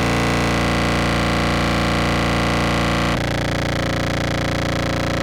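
Low contrabass clarinet sample played through an EHX POG2 octave pedal into a Behringer Brassmaster fuzz: a sustained, heavily distorted tone that moves to a new note about three seconds in.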